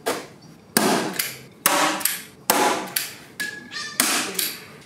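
Hand staple gun firing staples through carpet into plywood: about six sharp snaps, roughly one a second.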